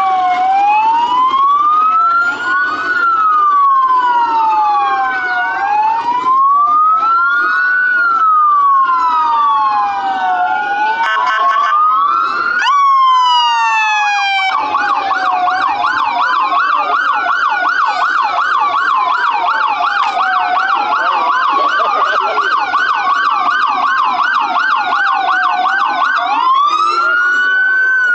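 Several emergency-vehicle sirens sounding together as parade vehicles pass. A slow wail rises and falls about every two and a half seconds throughout. About halfway through, a fast yelp joins over it and runs until shortly before the end.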